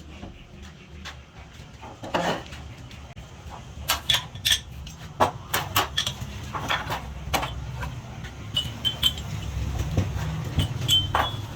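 Small hard parts being handled, clicking and knocking against each other and a work surface at an irregular pace, over a steady low machine hum.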